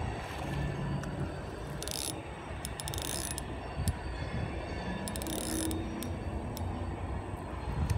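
Spinning reel ratcheting and clicking, with short bursts of hiss, as a big hooked catfish pulls against the rod during the fight. Low rumble of wind and handling underneath.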